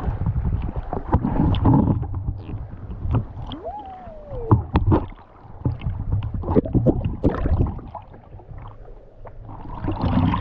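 Water splashing and sloshing close to the microphone as people slide and wade through a waterfall pool, with many sharp splashes. A short tone that rises and then falls comes through about four seconds in.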